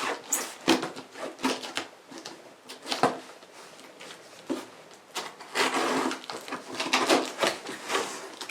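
A cardboard box being opened by hand: scraping and rustling of cardboard and packing, with scattered knocks and clicks, busiest in the second half.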